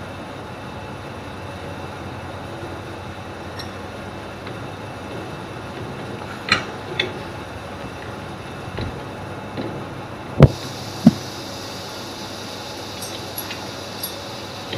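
Metal-on-metal clinks and two sharp knocks about ten and eleven seconds in, as flat steel bars are clamped in a lathe chuck with the chuck key, over a steady background hum.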